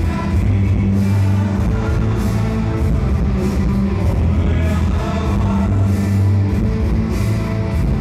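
Rock music track with guitar and drums.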